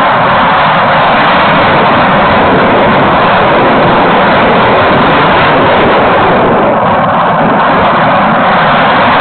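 Loud, steady rush of wind and propeller noise picked up by a video camera riding on a Wild Hawk RC model plane in flight.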